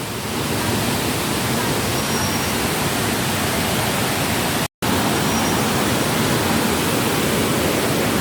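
Iruppu Falls waterfall, its water rushing in a loud, steady roar of even noise. The sound cuts out completely for an instant a little past halfway, then carries on unchanged.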